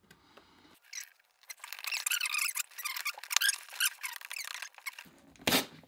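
Cardboard box being pulled and pried open by hand: dense scraping and squeaking of cardboard, then a short loud rip near the end as the box tears.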